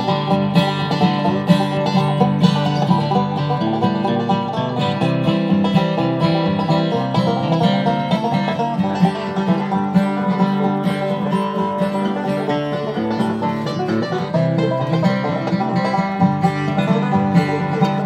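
Background music played on plucked string instruments in a bluegrass style, with quick picked notes and no break.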